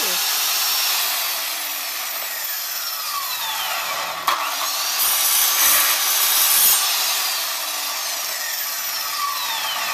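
Electric miter saw (chop saw) running and cutting 2x2 wooden strips, its whine falling in pitch several times, with a sharp click about four seconds in.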